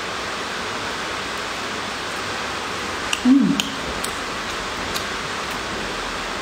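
Steady background hiss. About three seconds in there is a short voice sound, a hum whose pitch falls, with a few faint clicks around it.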